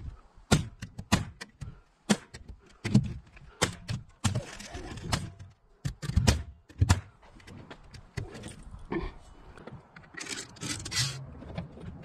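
Framing nailer driving nails through OSB roof sheathing into the trusses: a quick, irregular run of sharp shots, several close together in pairs. Near the end the shots give way to scraping and rattling.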